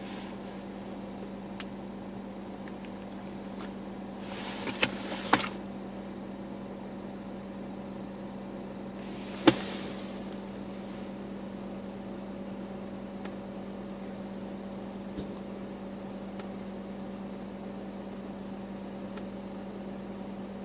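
A steady low hum with a few sharp clicks and taps from fingers pressing the buttons and touchscreen of an Xtrons double-DIN car stereo. Two clicks come close together about five seconds in, and a louder one comes about halfway through.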